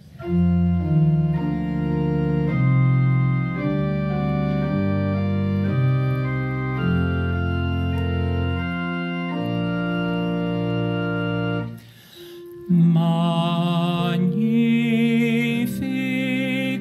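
Church organ playing a hymn introduction in held chords that change step by step. It breaks off briefly near the 12-second mark, then a voice begins singing a melody with vibrato over the organ.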